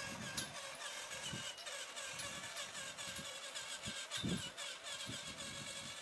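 Small electric motor of a radio-controlled toy truck whining, its pitch wavering up and down, with a few low thuds, the loudest about four seconds in.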